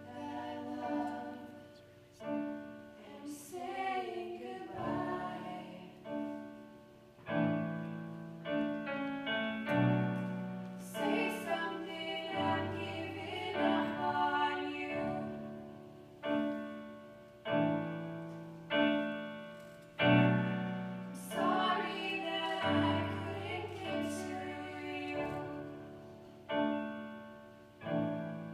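Live ballad for female voice and keyboard: piano chords are struck about once every second or so and die away between strikes, while a woman sings a slow melody over them that comes and goes.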